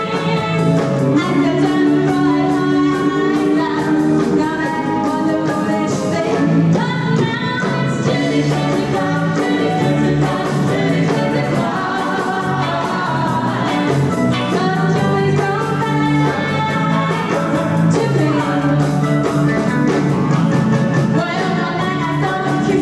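Live rock and roll band playing, with a singer over it.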